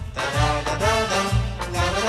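Background music: an upbeat swing-style tune with brass and a steady bass beat.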